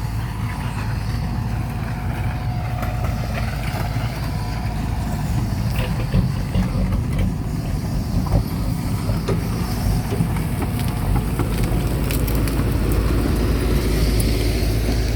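Truck engine running steadily as the truck is moved a short way, with a few scattered clicks and knocks over it.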